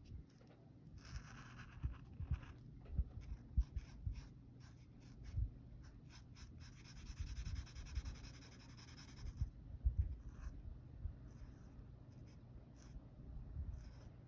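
Coloring in by hand with a pen or colored pencil on paper: rapid scratchy strokes, with a longer unbroken stretch of scribbling midway. Now and then a soft thud of the hand or paper against the table.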